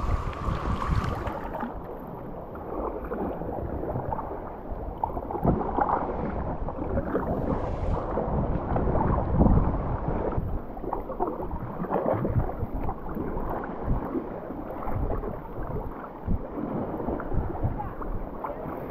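Kayak paddle strokes: the blades dipping into calm sea water and splashing, one stroke after another at an uneven rhythm.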